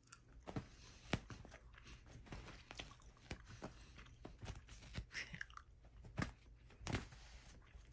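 Scattered soft clicks and crunches at an irregular pace.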